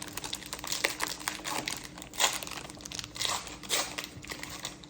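Foil booster-pack wrappers of Disney Lorcana trading cards crinkling in the hands as they are torn open, in quick irregular crackles.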